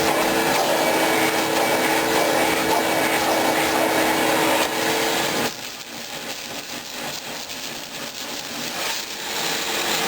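Shop vac running and sucking up loose debris from the floor. About five and a half seconds in its steady hum drops away, leaving a quieter, rougher noise that grows louder again near the end.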